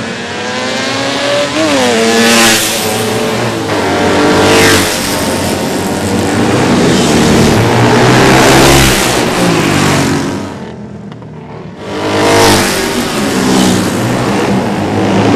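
Vintage racing motorcycles running hard past on a street course, engines revving up and dropping back as they shift and corner. Several loud passes follow one another, with a short lull about two thirds of the way through.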